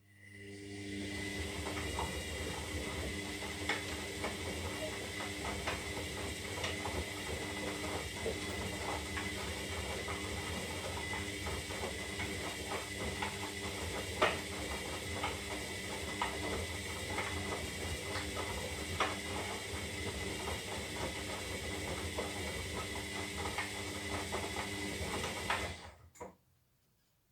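Zanussi Lindo 300 washing machine turning its drum during the wash phase. The motor whines steadily under scattered light clicks and rattles. It starts up at the beginning, runs for about 25 seconds, then stops suddenly.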